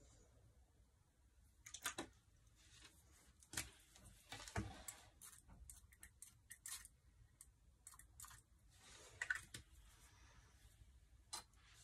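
Faint scattered clicks, taps and brief rustles as a paintbrush and a small bottle are handled over a sketchbook.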